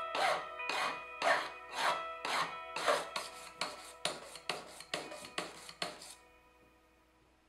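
Hand filing of a gold ring held against a wooden bench pin: rasping strokes, about two a second, quickening to about three a second, then stopping about six seconds in.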